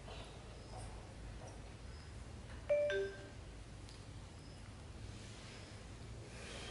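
A short two-note electronic chime about three seconds in, a higher note dropping to a lower one like a ding-dong, about half a second long, over a faint low hum of room tone.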